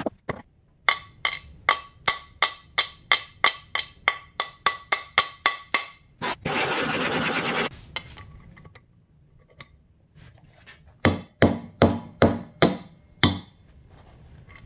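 Hammer strikes driving the old crankshaft bearing out of an aluminium crankcase half of a Honda CR85R two-stroke engine: a long even run of sharp, ringing taps, about three a second, then a steady rush of noise for about a second and a half. Near the end comes a second, shorter run of about nine heavier strikes.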